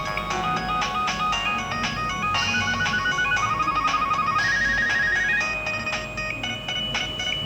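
Polyphonic Nokia ringtone melody played through a Nokia 2760 phone's loudspeaker: synthesized notes stepping up and down in pitch, with quick repeated notes in the middle.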